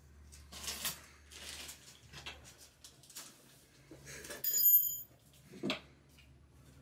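Two dogs, one a yellow Labrador, play-wrestling quietly: a series of soft huffing breaths and puffs through the nose. About four and a half seconds in comes a brief high ringing tone, the loudest sound, followed by a short sharp snort or click.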